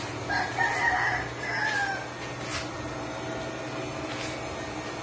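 A rooster crowing once, a call of about a second and a half that falls in pitch at the end, over a steady low hum. A couple of faint clicks follow.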